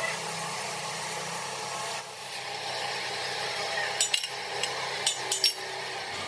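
Gas torch hissing steadily as its flame heats a weld seam on a steel tractor front axle beam. About four seconds in, a wire brush scrapes the hot seam in a few quick strokes.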